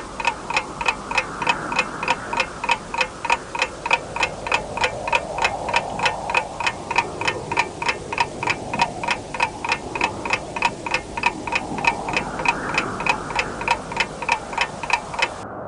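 Clock ticking steadily at about three ticks a second, starting suddenly and cutting off near the end, over a steady rushing noise.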